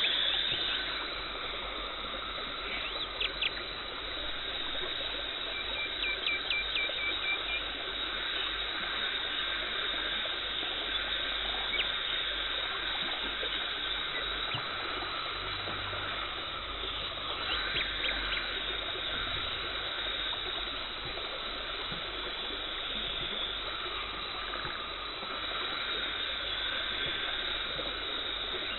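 Dental cleaning equipment running, with the hiss and gurgle of suction and water spray. A few short runs of rapid clicks break in.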